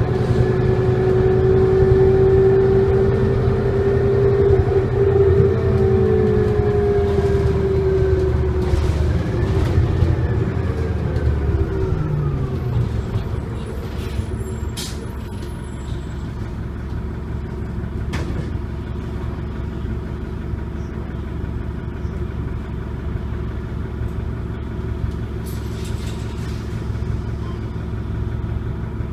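Onboard a 1999 New Flyer D40LF bus under way, its Detroit Diesel Series 50 engine and Allison transmission drivetrain drone with a strong steady whine. About ten to twelve seconds in, the whine falls in pitch and fades, leaving a lower, steadier engine and road drone with a few clicks and rattles.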